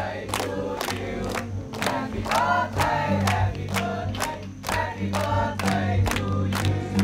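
Music with singing voices over a steady beat of about three sharp hits a second.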